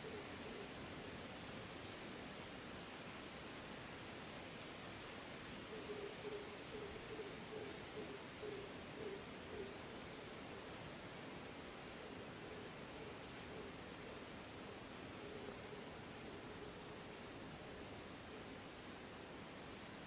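Rainforest insect chorus: a steady, high, two-toned buzzing. Behind it, soft low notes repeat in runs, from about six seconds in and again later.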